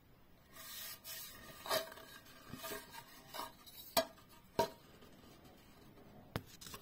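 Handling noise from a planed pine board and a steel try square: a soft rub of wood, then a handful of light knocks and small metal clicks as the square is set against the board's edge.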